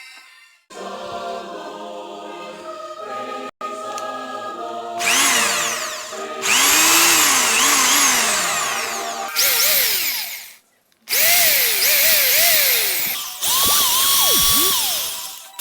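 Bosch GSB 13 electric drill running in about five bursts, its motor pitch rising and falling as the trigger is squeezed and eased. This is a test run after the forward/reverse repair.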